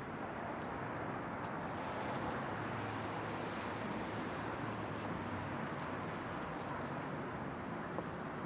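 Steady city street traffic noise: a continuous hum of passing cars.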